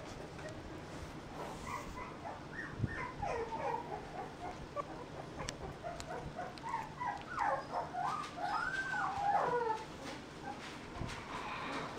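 Young mixed-breed puppies whimpering with many short, high squeaks while they play. The squeaks come thickest from about three seconds in, with a longer wavering whine near the end.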